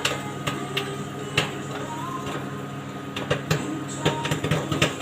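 Popcorn kernels popping irregularly inside a running microwave oven, over the oven's steady hum; the pops come more often in the second half.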